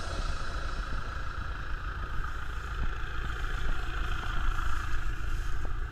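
Off-road 4x4's engine running steadily at low revs as the vehicle drives slowly through tall grass, heard from a camera mounted on the vehicle.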